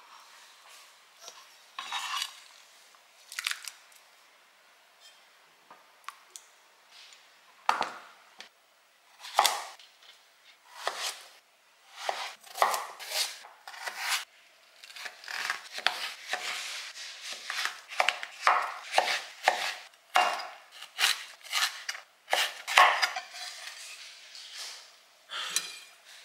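Kitchen work sounds: irregular short knocks, clinks and scrapes of utensils against dishes and a cutting board, sparse at first and busier in the second half.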